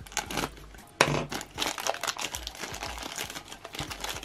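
Thin clear plastic bag crinkling as it is cut open and handled, with a sharp click about a second in.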